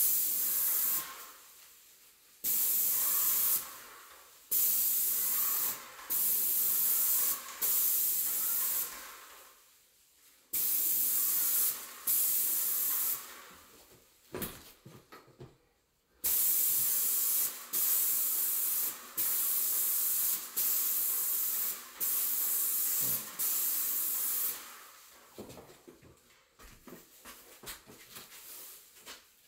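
Spray gun hissing in repeated short bursts of about a second each as the trigger is pulled and released, spraying yellow-tinted drywall mud as a guide coat over gypsum wall panels. Near the end the spraying stops, leaving only faint small knocks and rustles.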